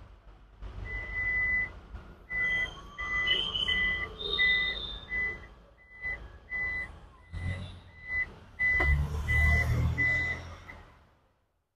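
A Toyota Innova Hycross's electronic warning beeper sounding a run of short, evenly spaced, high single-tone beeps, about one and a half to two a second, stopping near the end. A sharp knock comes about nine seconds in, with low rumbling and handling noise around it.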